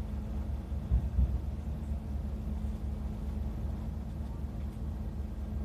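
Nagoya Guideway Bus running: a steady low rumble with a constant hum, and a couple of low thumps about a second in.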